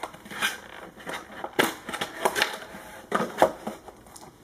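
Hands handling a clear plastic packaging tray: a run of irregular clicks and crackles, the sharpest about a second and a half in and around three and a half seconds in.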